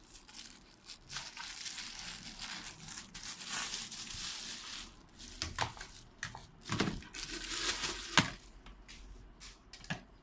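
Packaging crinkling and rustling as a vacuum cleaner accessory is unwrapped, with a few sharp knocks, the loudest about 8 seconds in.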